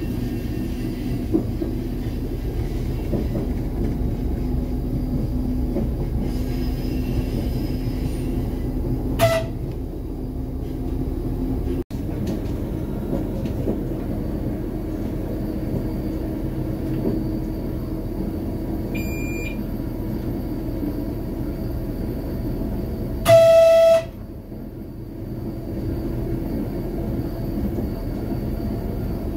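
RA2 diesel train under way, heard from inside the driver's cab: steady engine and wheel noise. The horn gives a brief toot about nine seconds in and a louder blast of about a second near the end, and a short beep sounds in the cab midway.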